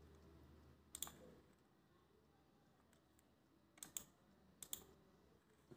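Faint computer mouse clicks: one about a second in, then two quick pairs later on, as points of a sketch are placed.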